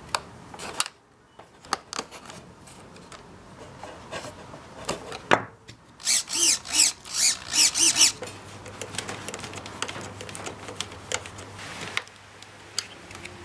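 Light clicks and taps of hands handling a foam tail and pushrod, then a 9-gram hobby servo whirring in several quick bursts as a servo tester drives it back and forth. After that a low steady hum with a few light clicks.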